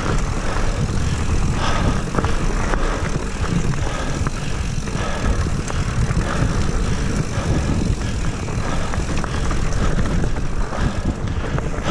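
Mountain bike rolling fast down a dirt singletrack: steady wind buffeting the handlebar camera's microphone, with the tyres on dirt and scattered knocks and rattles as the bike goes over bumps.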